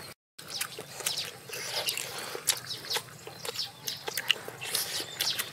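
Faint short chirps of small birds, with scattered soft clicks.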